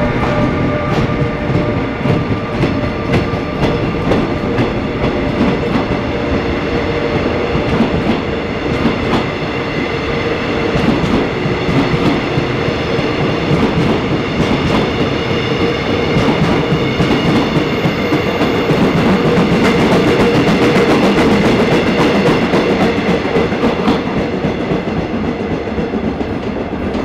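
Mugunghwa passenger coaches rolling past as the train pulls away and gathers speed, their wheels banging in a quickening rhythm of knocks. The pounding comes from wheels with flat spots, bad enough that they need reprofiling at once, which the uploader puts down to the 1st and 7th cars' bogies.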